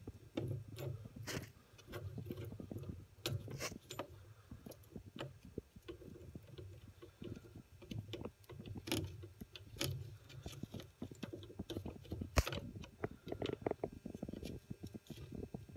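Fingers handling and working the lever handle of an old gas cock close to the microphone: scattered small clicks and rubbing, with one sharper click about twelve seconds in.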